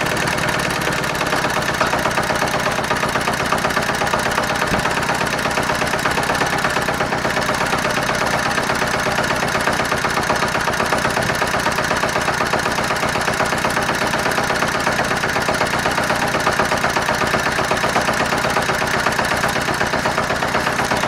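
Small single-cylinder engine of a homemade tractor running steadily at idle, with an even, rapid firing beat.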